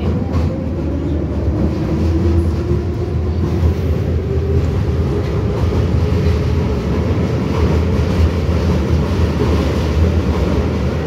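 81-717/714 'nomernoy' metro train running, heard from inside the car: a loud steady low rumble of the car in motion, with a whine that rises in pitch over the first few seconds as the train gathers speed.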